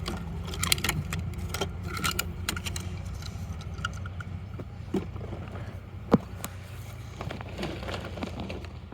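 Scattered light clicks and rattles of hard plastic toy parts being handled, with a sharper click about six seconds in, over a steady low hum.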